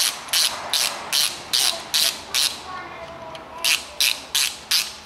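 Hand socket ratchet clicking in quick back-and-forth strokes, about two and a half a second with a short pause midway. It is running connecting-rod big-end cap bolts up snug, evenly, before they are torqued.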